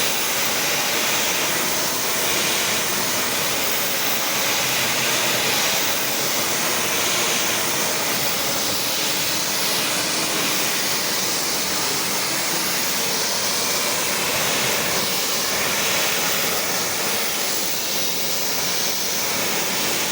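Pressure washer spraying water: a steady, even hiss.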